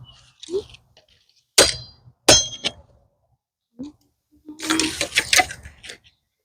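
Two sharp chopping strikes on a fallen tree branch, each with a brief metallic ring, followed by about a second and a half of cracking and rustling wood and twigs.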